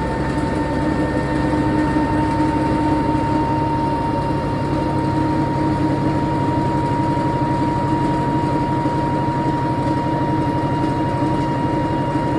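160 lb Unimac washer-extractor in its high-speed spin toward 710 rpm (300 g): a steady, fast-fluttering rumble with a whine that creeps slightly up in pitch. The noise comes from its drum bearings, less than a year old and destroyed by running under-loaded.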